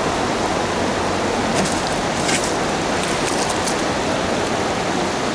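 Steady rush of river water flowing over stones, with a few faint light ticks about halfway through.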